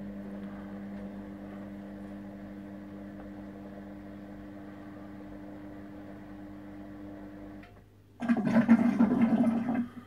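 Samsung WW9000 front-loading washing machine at the start of its wash cycle: a steady hum with running water for about eight seconds. After a brief pause comes a louder rushing of water lasting nearly two seconds.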